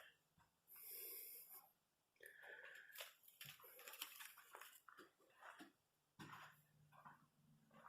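Near silence, with faint scattered scuffs and a soft hiss now and then.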